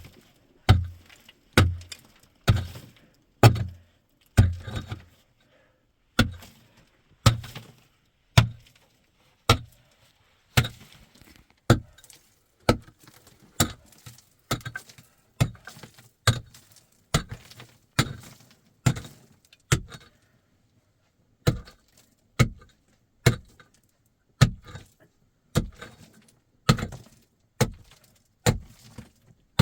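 Repeated sharp strikes of a hand tool, about one a second. The first several land with a deeper thud, and there is a short pause a little past the middle.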